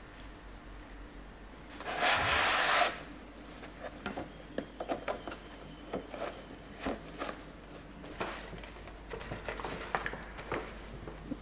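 Hands handling gift wrapping on a wooden table: a loud rustle lasting about a second, about two seconds in, then a run of light taps, knocks and crinkles from fabric, a cardboard box and a paper bag being handled.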